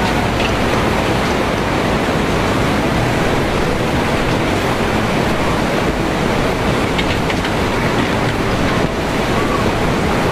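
A torrent of floodwater surging through a town street, a loud steady rushing noise with a few faint knocks now and then.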